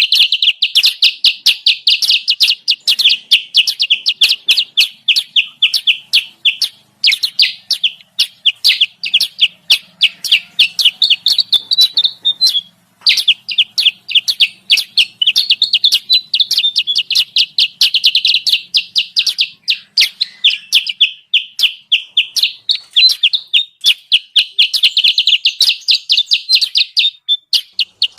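Bird-trapping lure call of the kutilang sutra (a bulbul): rapid, continuous high chirping, many notes a second, with brief breaks about 7 and 13 seconds in.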